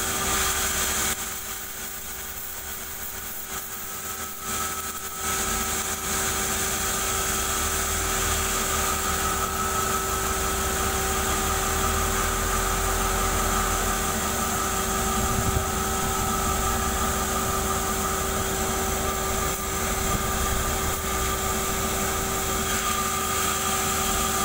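Band sawmill running steadily, its drive and band blade making a steady hum with a whine on top. The sound drops for a few seconds about a second in, then comes back up and holds steady.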